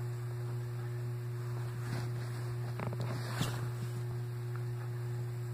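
Steady low hum with a few faint rustles and taps, about two and three and a half seconds in, from the recording device being handled.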